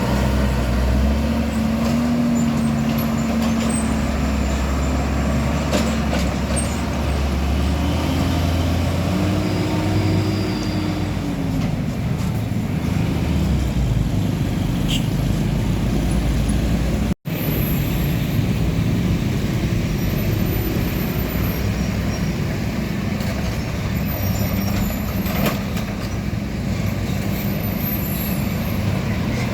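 Heavy diesel trucks driving past on a road, their engine note rising and falling as they go by over steady traffic noise. The sound cuts out for an instant about halfway through.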